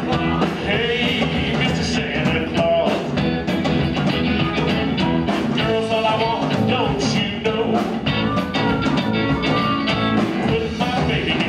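Live blues band playing: electric guitar, bass guitar and drums, with a harmonica cupped against a microphone.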